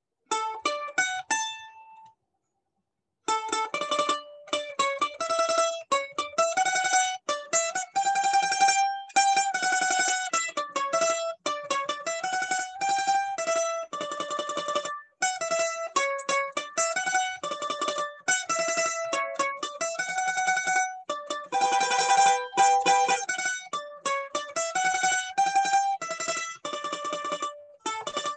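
Solo mandolin playing a lively picked melody with fast, rapid picking. It breaks off for about a second near the start, then plays on without a pause.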